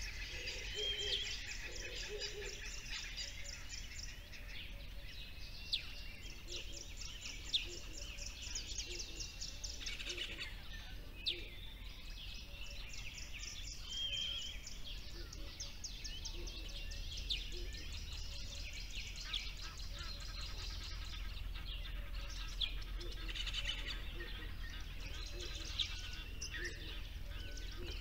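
Small songbirds chirping and trilling, several birds overlapping with short sharp calls and fast rattling trills.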